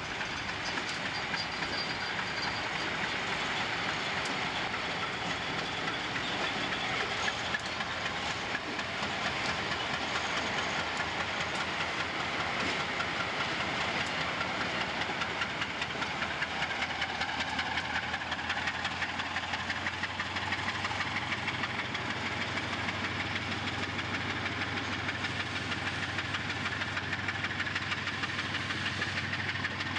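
Freight train rolling by: a steady rumble and hiss of wheels on rails. A low, steady diesel engine drone comes in about two-thirds of the way through.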